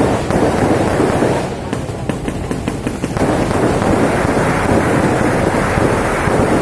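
Aerial fireworks going off overhead: a dense, loud rumble of bursts that eases for about a second around two seconds in, where a quick run of sharp crackles comes through, then builds again.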